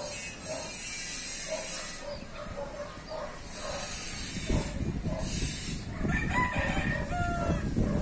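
Breeze rustling the leaves. Wind starts buffeting the microphone about halfway through. Short calls repeat steadily, and a rooster crows about six seconds in.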